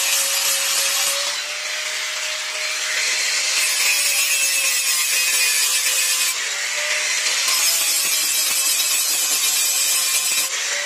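Bosch angle grinder's abrasive disc grinding the steel of an old knife blade: a steady motor whine under a harsh, continuous grinding hiss that eases and comes back a couple of times as the pressure on the disc changes.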